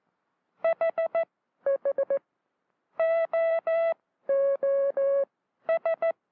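Morse code sent as buzzy tone beeps from a practice key: four short dits, the same four at a slightly lower pitch, three long dahs, the same three lower, then four dits again. It reads as the letters H, H, O, O, H. Each letter is sent on one tone and echoed on the lower one, as in learning to send by imitation.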